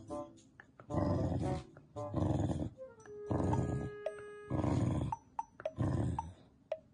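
Corgi growling angrily while being stroked, in about six short rough bursts of roughly half a second each.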